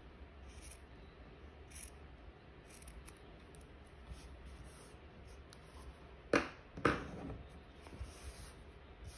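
Two sharp snips of fabric scissors about half a second apart, cutting through the bulky cotton seam allowance, with faint handling ticks around them.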